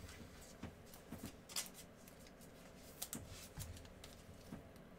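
Faint crinkling and scattered short clicks of gloved hands handling a Prizm basketball card pack and its cards, a handful of separate rustles over a few seconds.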